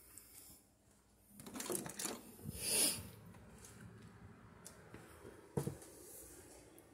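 Handling noise from a phone camera being carried along, with a brief rustle about two and a half seconds in and a single sharp click a little after five and a half seconds.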